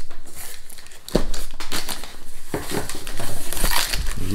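Cardboard box being torn open: packing tape ripping and cardboard flaps being pulled back, with irregular crinkling and scraping and a sharp crack about a second in.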